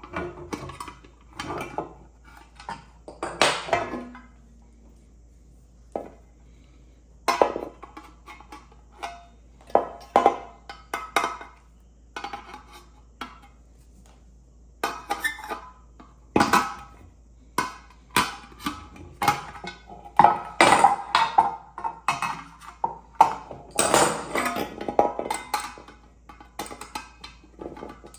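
Irregular metallic clinks, taps and knocks of a pressure cooker's lid and small parts being handled, some with a short ring, coming thicker in the second half.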